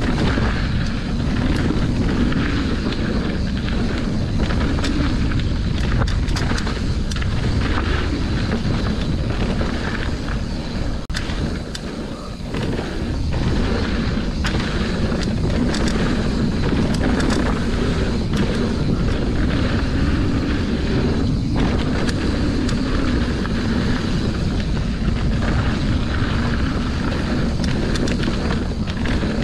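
Wind buffeting the microphone of a camera riding on a mountain bike descending a dirt trail, over the rush of the tyres and the rattle of the bike over bumps. The rush eases briefly about eleven seconds in, then picks up again.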